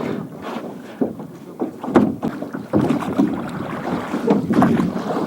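A small rowboat under way, with water splashing and a few knocks against the hull, and wind on the microphone.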